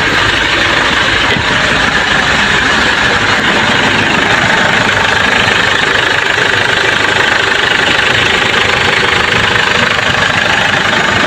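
Ford Everest engine idling steadily, just started by bridging the starter circuit around a no-crank fault.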